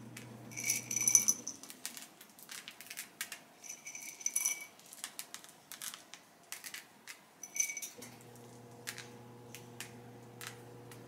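Chocolate chips clicking and rattling in a glass jar as they are picked out by hand. A few brief ringing clinks of the glass come in short clusters.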